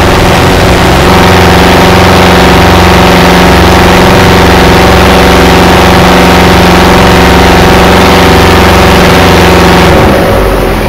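Fishing boat's engine running steadily and loud, heard from on board; near the end its pitch drops.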